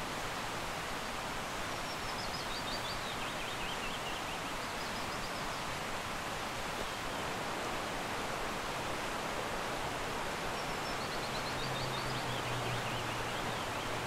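Steady rush of a fast-flowing stream running high, with a small songbird twice singing a short phrase of quick high notes that falls in pitch.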